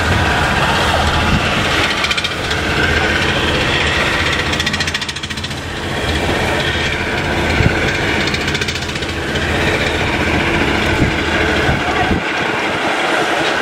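Wooden fishing boat's diesel engine running steadily as the boat motors past at slow speed; the low rumble drops away near the end.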